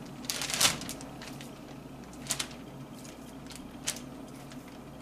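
Plastic zipper-lock food bag crinkling as it is opened, loudest about half a second in, then a few brief crinkles and clicks as pieces of raw pork loin are dropped into it with tongs.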